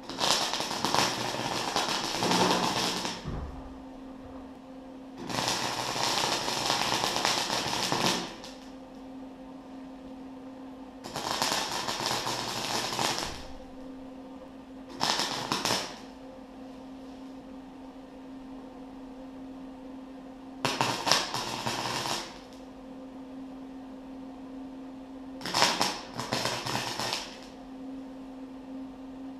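Arc welder crackling and sputtering as beads are laid on steel, in six bursts of one to three seconds each. Between the bursts, a steady hum.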